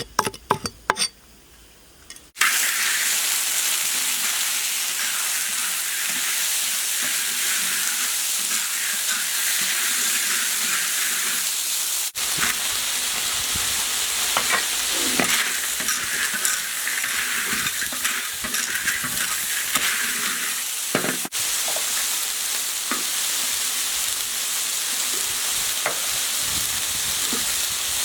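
A few sharp knocks, then a couple of seconds in a sudden loud sizzle as ingredients hit a hot wok, going on as a steady stir-fry sizzle with the sounds of stirring.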